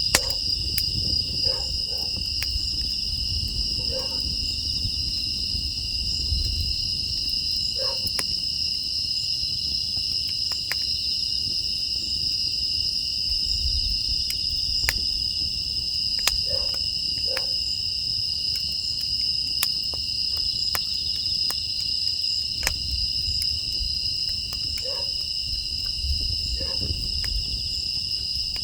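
Steady chirring of crickets and other night insects in two high-pitched bands, over the crackle and pops of a burning wood fire in a furnace, with a low rumble beneath and a few brief faint calls scattered through.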